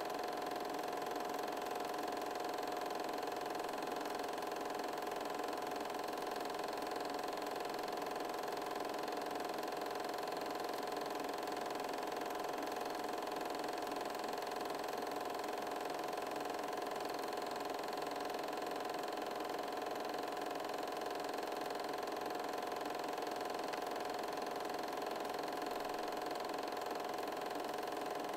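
Film projector running steadily, its motor and film mechanism giving a constant whirr.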